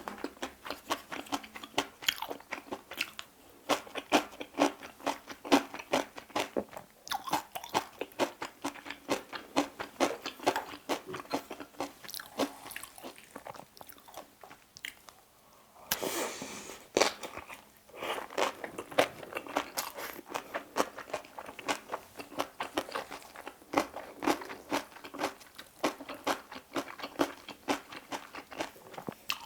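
Close-miked chewing of a mouthful of bibimbap with crunchy seasoned vegetables, many small rapid crunches and mouth clicks. It pauses briefly about halfway through, then there is a second of noisier sound before the chewing resumes.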